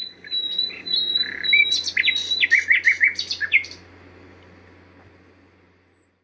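A bird singing: a long steady high whistle, then a quick run of sweeping chirps that stops about four seconds in, over a faint low hum.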